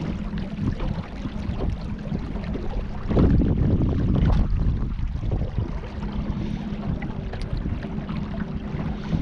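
Wind buffeting the microphone while out on the river in a small boat, with a steady faint hum underneath. A louder gust comes about three seconds in and lasts a second or so.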